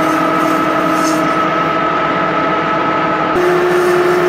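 Metal lathe running with a brass washer spinning in its chuck: a steady gear whine over the motor's hum. A little after three seconds in, the whine gives way to a lower steady tone.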